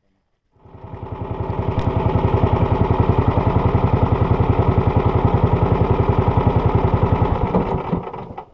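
Small boat engine running with a fast, even throb. It swells up about a second in, holds steady, and fades away near the end.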